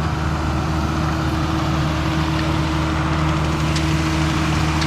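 A motor engine idling steadily, a constant low hum.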